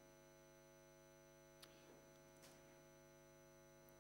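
Near silence: a steady electrical mains hum, with two faint clicks about a second and a half and two and a half seconds in.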